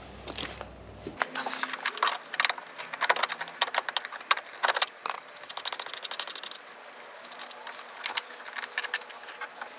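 Hand tools and small metal parts clinking and rattling as they are handled, a dense run of sharp clicks in the first half, then scattered clicks.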